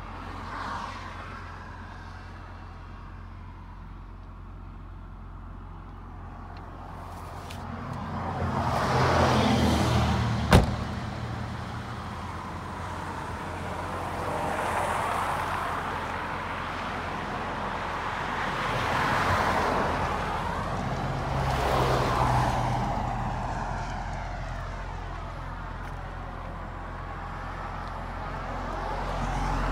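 Nissan RB25DET Neo 2.5-litre turbo straight-six idling steadily, heard as a low even drone, with rushing noise swelling and fading several times. A single sharp knock about ten seconds in.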